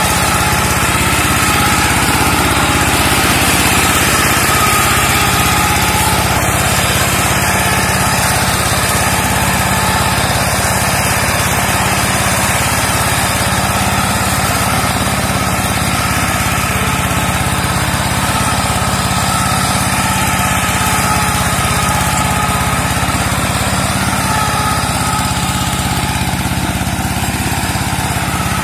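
Engine of a two-wheel hand tractor converted into a land-clearing brush mower, running steadily as it is driven through undergrowth. It grows a little fainter near the end.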